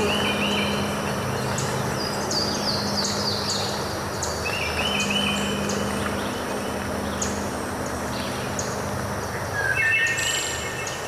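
Steady rush of a waterfall with songbirds chirping over it. Trilled phrases come near the start, again about halfway through and near the end, with short high calls in between.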